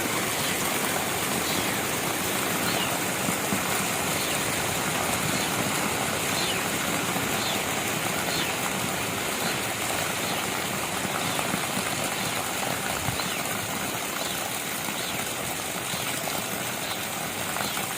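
Heavy tropical rain pouring steadily, with faint short high-pitched calls repeating about once a second.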